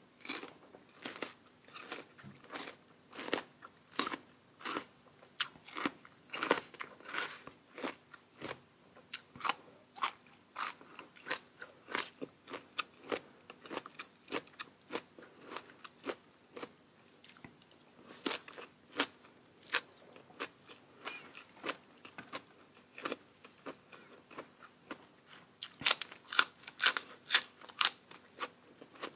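Close-miked chewing of crunchy food: a steady run of crisp bites and crunches, about two or three a second, with a burst of louder crunches near the end.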